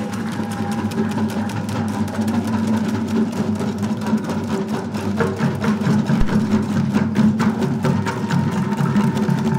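A group of drummers playing a fast, steady rhythm of stick strokes, with a sustained tone held underneath.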